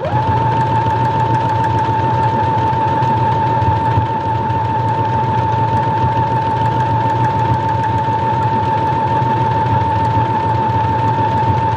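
Brother XR9550 computerized sewing machine starting up and sewing at a steady speed, stitching a decorative leaf stitch, with a steady high whine over a low hum.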